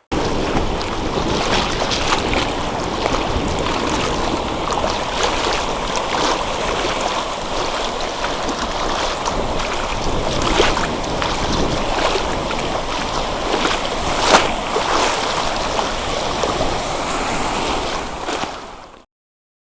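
Sea waves washing and breaking in a continuous rush of water, with a few sharper splashes standing out; the loudest comes about 14 seconds in. The sound fades out just before the end.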